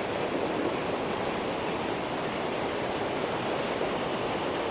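Waterfall running heavy: a steady rushing of falling water with no let-up.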